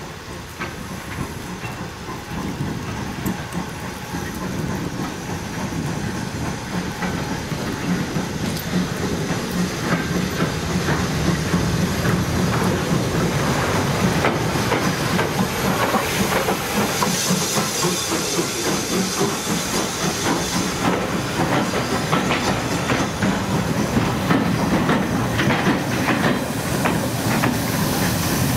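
Steam locomotive approaching and passing close by with a train of coaches, hissing steam and growing steadily louder for about the first twelve seconds. Wheels then clatter over the rail joints as the coaches roll past.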